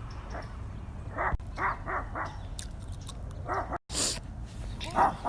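A dog barking: a quick run of four short barks about a second in, then another bark, and a louder one near the end.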